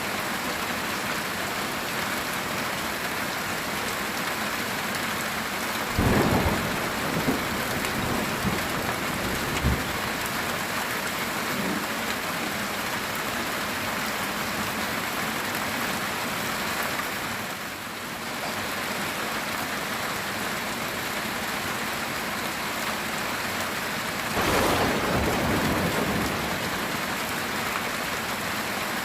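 Heavy rain beating steadily on a metal tin roof. Thunder rumbles twice, once about six seconds in with crackles over the next few seconds, and again near the end.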